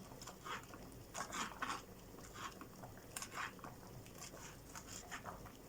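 Kitchen knife dicing a very soft homegrown tomato into small cubes: faint, irregular cutting strokes, about two or three a second.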